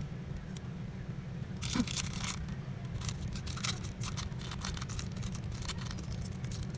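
Clear plastic film crinkling and scraping as fingers handle and peel it on an opened smartphone, in short irregular crackles starting about a second and a half in, over a steady low hum.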